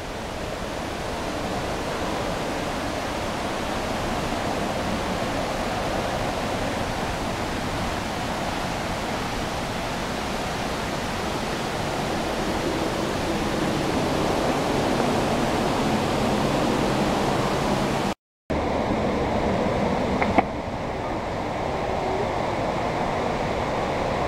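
Steady rush of falling water from a waterfall. About three-quarters of the way through it cuts out for a moment, and a sharp click follows shortly after.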